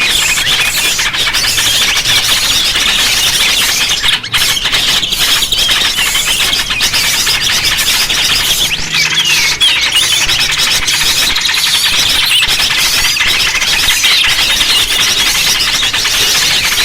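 A dense chorus of many small birds chirping and chattering without pause: a recorded lure call for attracting small birds.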